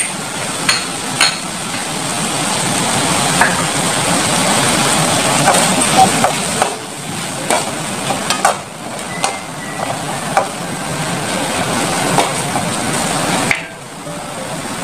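Radish, tomato and ginger sizzling in a hot metal wok with fish sauce just added, stirred with a utensil that clicks against the pan now and then. The sizzle dips briefly near the end.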